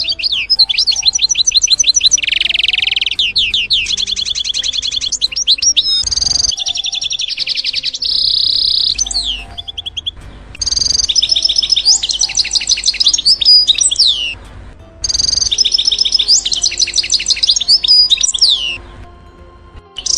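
Goldfinch singing: rapid, twittering trills and warbles in three long phrases separated by short pauses, with a brief snatch of song near the end.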